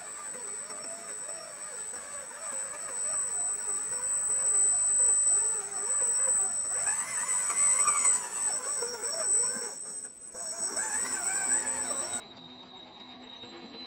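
Small electric drive motor and gearbox of a 1:12-scale RC off-road crawler whining as it climbs a muddy dirt slope. The whine rises and falls with the throttle and gets louder as the truck comes closer. A steady high tone runs underneath and cuts off abruptly near the end.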